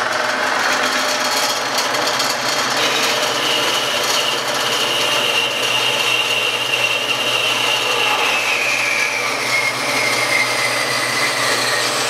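Central Machinery horizontal metal-cutting bandsaw running and its blade cutting through half-inch square tubing: a steady motor hum under a ringing cutting whine that slides gradually lower in pitch as the cut goes on.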